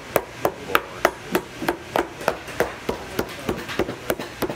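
A hammer striking a boot in steady, evenly spaced blows, about three a second.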